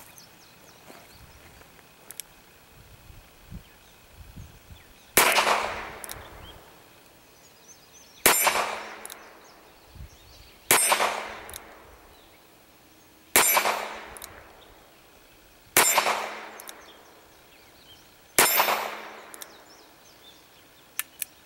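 Six shots from a Smith & Wesson Model 34-1 .22 LR revolver, two to three seconds apart, emptying its six-shot cylinder; each crack is followed by a ringing tail, as of a steel target struck. A few light clicks come before the first shot and a pair near the end.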